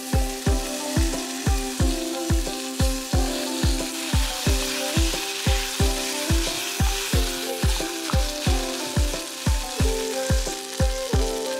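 Kinima (fermented soybean) and chopped tomato sizzling in a stainless steel pot as they are stirred with a wooden spoon. Background music with a steady beat of about two a second plays throughout.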